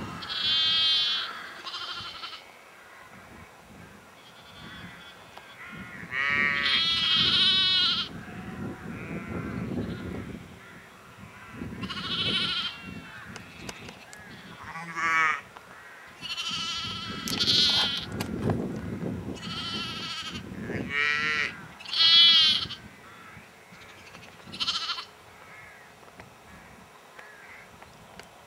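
Sheep bleating over and over: a dozen or so separate quavering calls, each a second or two long, many of them high-pitched like lambs' bleats.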